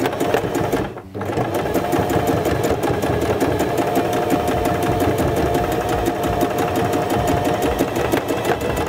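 Electric sewing machine running a straight stitch through a folded trouser waistband, with a rapid, even needle rattle. It stops briefly about a second in, then runs steadily at speed.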